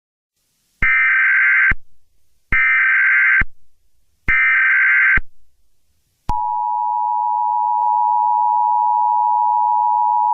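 Emergency Alert System tones: three bursts of SAME digital data screech, each about a second long, then the steady two-tone attention signal starting about six seconds in.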